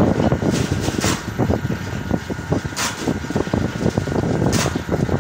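Joss paper printing machine running: a steady dense mechanical clatter with a hissing swish that comes back about every 1.8 seconds, three times.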